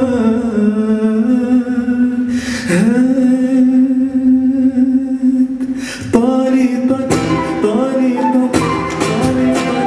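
Live song in the Andalusian tarab style: a voice holds long, ornamented notes that glide between pitches, over acoustic guitar accompaniment.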